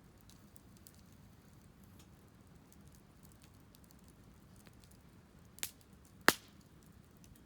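Wood fire crackling with faint scattered ticks, then two sharp pops about two-thirds of the way through, the second louder.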